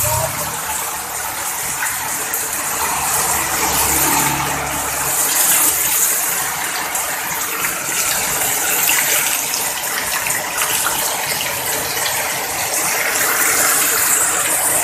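Heavy rain falling in a steady hiss, with a low rumble underneath for the first five seconds or so.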